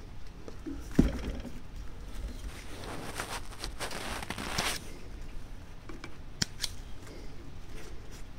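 Small fly-tying scissors trimming the rubber legs on a foam fly held in a vise: a sharp click about a second in, a rustle of snipping and handling in the middle, and two quick snips near the end.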